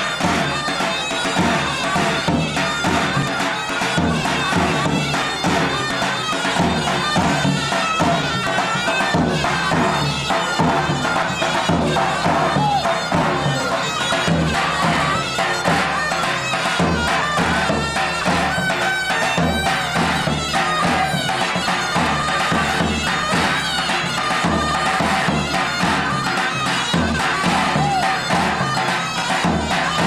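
Davul and zurna playing traditional dance music: the shrill, reedy wind melody runs on unbroken over steady beats of the large bass drum.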